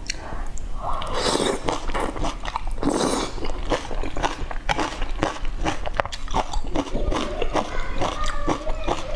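Close-miked eating: noodles and greens slurped in two long sucks, about one and three seconds in, followed by wet chewing with many quick lip-smacking clicks.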